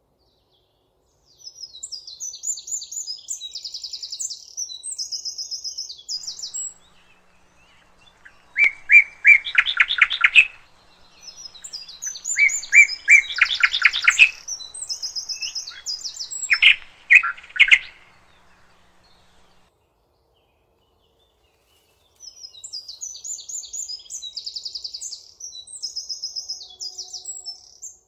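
Songbirds singing in separate phrases with silent gaps between: high, rapid trilled phrases and louder, lower phrases of quickly repeated notes that come in the middle. The singing stops for a few seconds, then the high trills return near the end.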